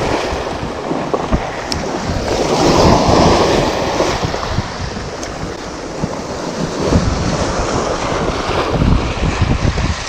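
Small waves washing in and splashing over shoreline rocks in slow surges, with wind rumbling on the microphone.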